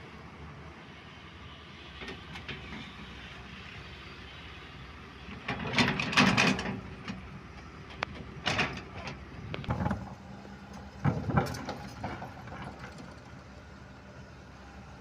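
Hydraulic excavator at work: its engine runs steadily under four loud bursts of clattering and scraping from the bucket and its load of earth and stone, the longest about midway.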